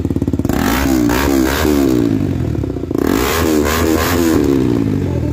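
KTM RC 200's single-cylinder engine running through an Akrapovic slip-on exhaust with the dB killer removed. It is revved in a string of quick throttle blips from about a second in, and again after a brief dip around the middle.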